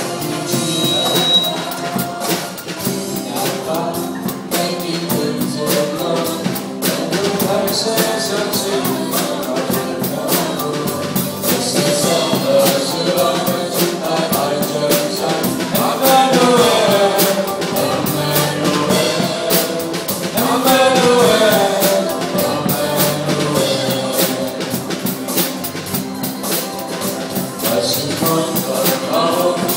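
Drum kit played along with a recorded song with singing: a steady beat of drum and cymbal hits over the track's sustained voice and instruments.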